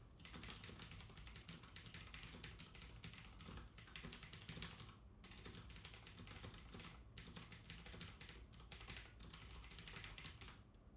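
Faint, fast typing on a computer keyboard in runs of keystrokes, broken by a few short pauses.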